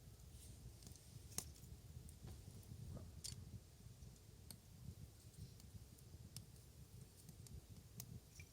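Wood fire crackling: sparse, irregular sharp pops over a low rumble.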